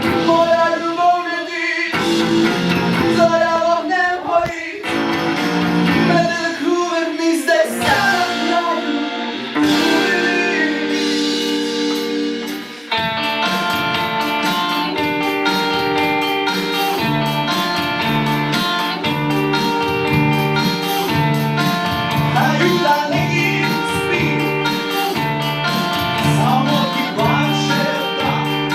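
Live guitar music with singing. A wavering vocal melody runs over the guitar at first, then about halfway through a steady strummed chord rhythm takes over.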